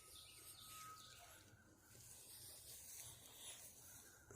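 Near silence: faint outdoor woodland ambience, with a thin steady high tone that fades out about a second in.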